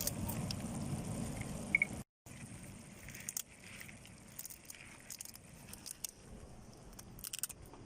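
Low, even rumbling background noise that cuts off about two seconds in, followed by a quieter background with scattered faint clicks.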